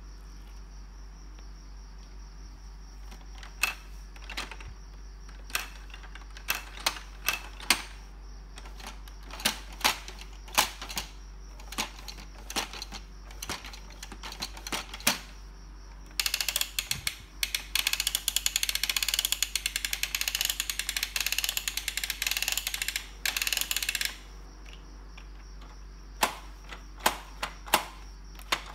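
Plastic toy track playset clicking and clacking as its pieces, buttons and levers are handled, with a run of rapid mechanical clicking lasting about eight seconds past the middle.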